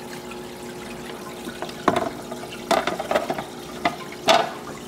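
Water trickling and splashing steadily from an AquaClear 110 hang-on-back aquarium filter, with a steady hum beneath. About five short sharp sounds break in during the second half.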